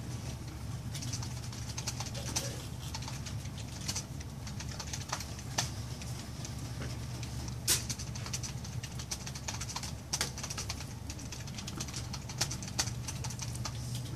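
Pen nib scratching across sketch-card stock in short, quick strokes while inking line work, with a few sharper taps, over a steady low hum.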